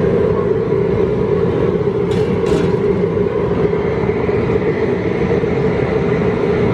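Propane burner of an outdoor boil cooker running steadily under the pot, with two short high-pitched sounds about two seconds in.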